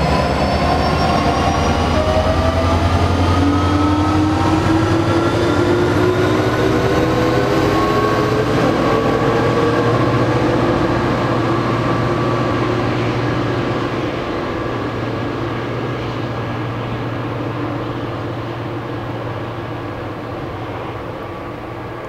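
A Bombardier electric locomotive pushes a train of passenger coaches away. Its traction motors give off a whine that climbs in pitch over rail rumble as the train picks up speed. The sound fades steadily over the second half as the train recedes.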